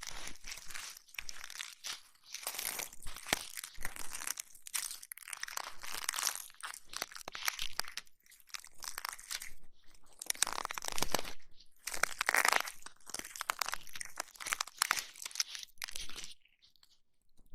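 Close-up crunchy, crackling rubbing and scratching right on the microphone, typical of ASMR ear massage and ear cleaning. It comes in irregular swells of a second or two, with a short lull near the end.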